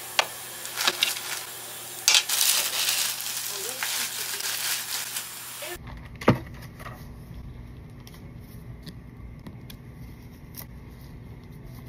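Clear plastic barrier film crinkling and rustling as gloved hands handle it, with a few sharp clicks. About six seconds in the sound cuts to a quieter, steady low hum with one sharp click.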